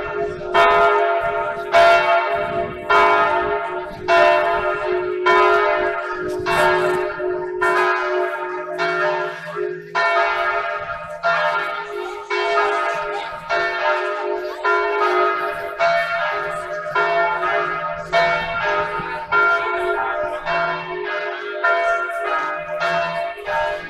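Church bells ringing in a steady peal, about one stroke a second, each stroke ringing on into the next. They are rung to mark the centenary of the 1918 Armistice.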